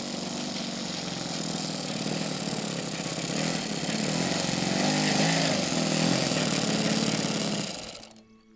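ASP FS52AR four-stroke glow engine of an RC model airplane running as the plane taxis, its pitch wavering slightly and getting louder around the middle. It fades out near the end, and a few soft, steady music tones begin.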